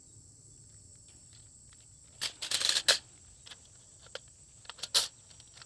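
Handling clicks and scrapes of a carbine buffer and spring being swapped in the buffer tube of a CMMG Banshee 10mm: a short burst of scraping about two seconds in, then a few sharp ticks. A faint steady insect hum runs underneath.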